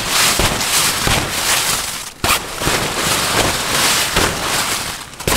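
Hail pelting a tent: a loud, dense crackle of many small impacts, starting abruptly.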